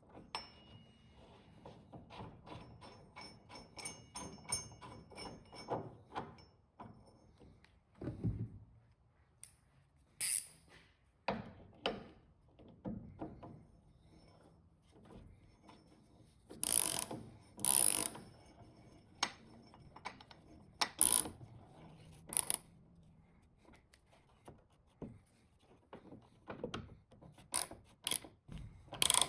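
Ratchet wrench clicking rapidly and evenly for several seconds, then scattered metal clinks and knocks of tools and parts being handled, a few sharper knocks among them.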